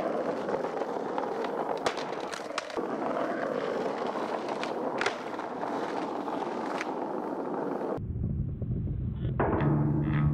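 Skateboard wheels rolling over a paved plaza, with several sharp clacks of the board. About eight seconds in the sound cuts off suddenly, and a rock track with bass and guitar starts up.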